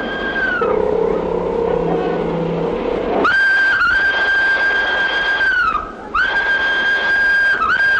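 Steam tram locomotive's whistle blown in repeated long blasts. Each blast is one steady high note held for about two seconds, and a lower steady tone fills the gap between the first two.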